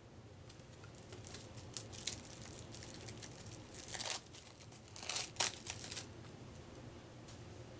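Plastic wrapping on a pack of paper game money being crinkled and torn open in several rustling bursts, loudest a little past the middle.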